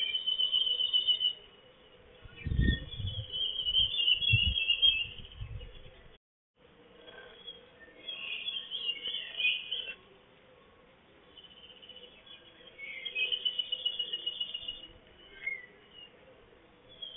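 A songbird singing the same high phrase over and over, each phrase lasting two to three seconds and coming back every four seconds or so. Between about two and five seconds in a low rumble sits under the song, and the sound cuts out for a moment just after six seconds.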